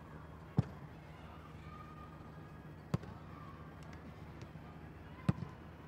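A football being struck: three sharp thuds, a little over two seconds apart, the last followed at once by a smaller knock, over a faint steady hum.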